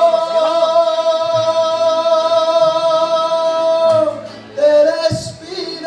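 Mariachi band playing a ranchera: one long held sung note lasts until about four seconds in, over strummed guitars and a plucked bass line, then the band carries on into the next phrase.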